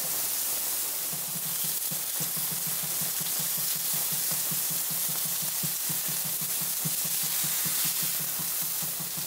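Onion burgers frying on a hot plancha: a steady sizzle with many small crackles and pops.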